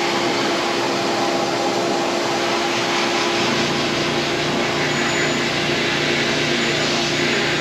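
Sandblaster blasting abrasive at 40 psi against a firearm suppressor, stripping its glossy finish as prep for Cerakote: a loud, steady hiss with a steady hum beneath it.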